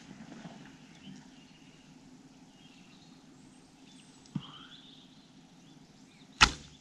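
Quiet outdoor ambience with faint bird chirps over a low steady background. There is a small knock a little past halfway and a sudden sharp knock near the end, which is by far the loudest sound.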